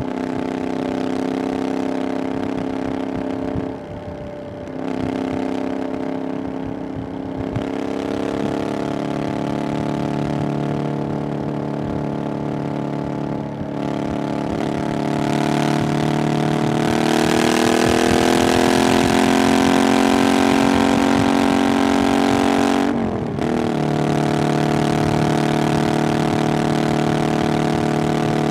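Triumph Bonneville Scrambler 900's 900cc parallel-twin engine through an aftermarket 'VW pipes' exhaust, under way on the road. The revs dip briefly twice early on, then rise steadily for several seconds and get louder. A quick gear change near the end is followed by steady running.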